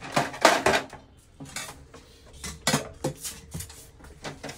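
Hard plastic printer cover parts clattering and knocking as they are lifted off and handled. There is a burst of clatter about half a second in, then scattered knocks every second or so.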